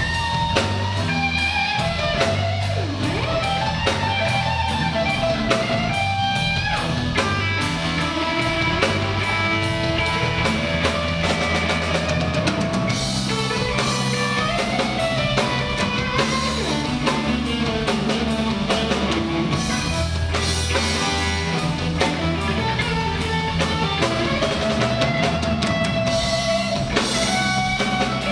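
Live blues band playing a slow blues: a Stratocaster-style electric guitar takes an instrumental solo over a drum kit with steady cymbal strokes and low bass notes.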